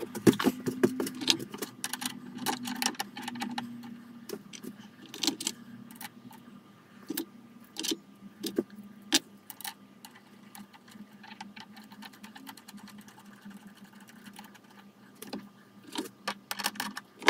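Steel clamping-kit parts (T-slot bolts, nuts and step blocks) clinking and knocking against each other as they are picked out of the kit box and handled, in irregular metallic clicks. A steady low hum runs underneath.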